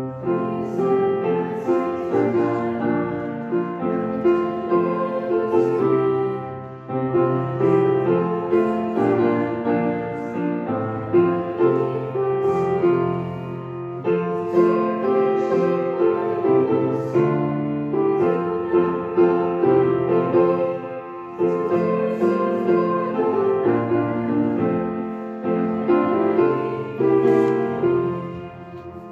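Piano playing a slow hymn in full, held chords, dying away near the end.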